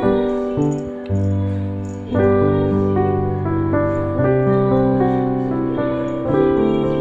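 Slow instrumental background music, long held chords changing every second or two.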